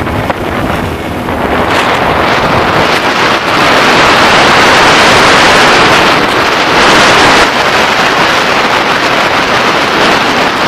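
Wind rushing over the microphone and water rushing along the aluminium hull of a jon boat under way, with the 1996 Mercury 9.9 hp four-stroke outboard running underneath. The rush grows louder about four seconds in.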